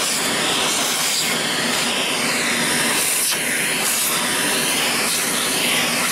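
Electrolux vacuum cleaner running steadily, its nozzle sucking dust from a graphics card's cooling fan; the hissing airflow note wavers up and down as the nozzle moves over the fan.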